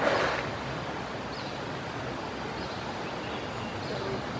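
An Asian elephant swimming in a river sends up one short splash of water right at the start. A steady outdoor hiss with faint high chirps from insects or birds follows.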